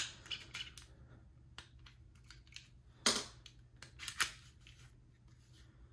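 Light clicks of a Ruger LCP pocket pistol being handled as its plastic safety flag is pulled out, followed by two brief scraping sounds about three and four seconds in.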